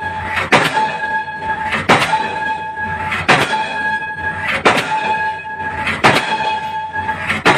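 Diesel pile hammer striking a concrete pile in a steady series of heavy blows, about one every second and a half, six in all.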